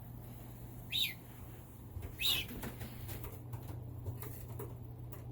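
Racing pigeons stirring in their loft: two short, sharp sounds about a second and two seconds in, then scattered light clicks, over a steady low hum.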